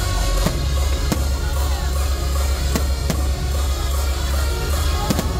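Loud music with a heavy, steady bass and drums, with a few sharp bangs from fireworks cutting through it at irregular intervals.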